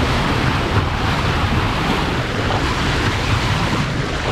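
Boat underway: the hull cutting through the water with a steady rush of spray and wake, over a low engine rumble, with wind buffeting the microphone.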